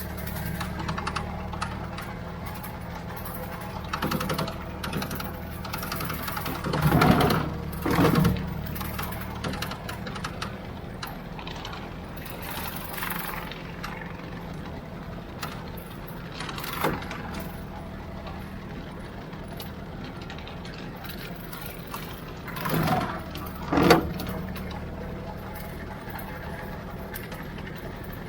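Ford 3600 tractor engine running steadily under load while driving a bush hog rotary mower. There are two pairs of brief louder surges, about a quarter of the way in and again near the end.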